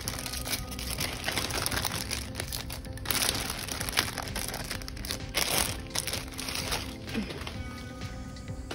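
Plastic bag and newspaper crinkling in irregular bursts as a newspaper-wrapped bundle is pulled out of a clear plastic bag, loudest around the middle, over soft background music.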